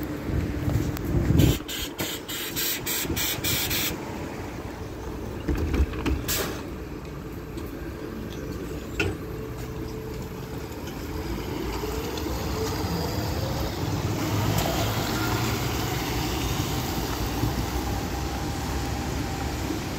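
KAMAZ-6282 electric bus at the stop, then pulling away. Hiss and a run of quick clicks come in the first few seconds, with a single knock about six seconds in. Then the electric traction motor's whine rises in pitch as the bus accelerates, over street traffic.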